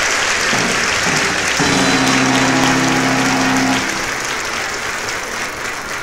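Audience applauding, slowly fading toward the end, with a held low musical note sounding for about two seconds in the middle.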